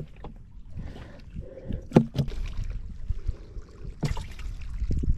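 Small waves lapping and slapping against the hull of a small fibreglass skiff, with two sharp knocks on the boat, the louder about two seconds in and another about four seconds in.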